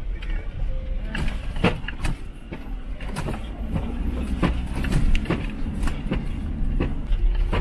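Mercedes T1N Sprinter van heard from inside the cabin, jolting over a rough, rutted dirt road: a steady low engine and road rumble with irregular knocks and rattles as the suspension and body take the bumps.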